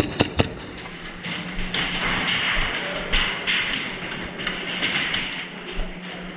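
Indoor airsoft game: three sharp cracks of airsoft gunfire in quick succession right at the start, then a few seconds of scuffling noise with scattered taps, over a steady low hum.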